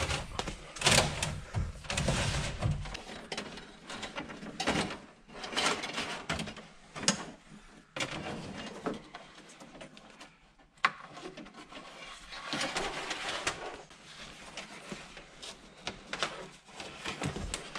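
Hands pulling and feeding electrical wire through plastic trim panels: irregular rustling and scraping with light clicks and knocks of wire and plastic.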